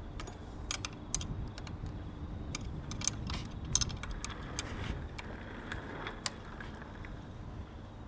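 Small socket ratchet clicking in short irregular runs while spinning on and tightening steel serrated flange nuts, with light metal clinks of the socket on the nut. A low steady rumble lies underneath.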